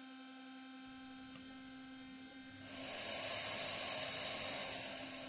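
Homemade CNC mill's spindle running at 16,000 rpm with a steady, even hum. About two and a half seconds in, a loud airy hiss swells up over it, holds, and fades away near the end.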